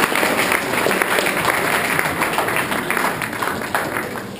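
Audience applauding: many people clapping at once, tapering off toward the end.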